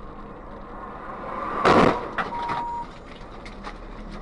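Road collision heard from inside a car: a noise swells and peaks in one loud burst about one and a half seconds in, then a short steady beep lasting about half a second, over a low steady vehicle hum.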